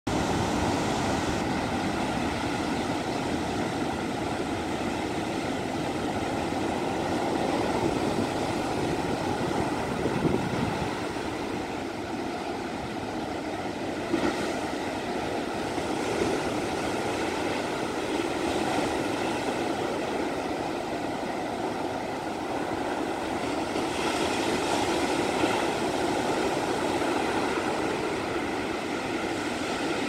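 Sea surf breaking on a beach: a continuous rush of waves, swelling and easing slightly.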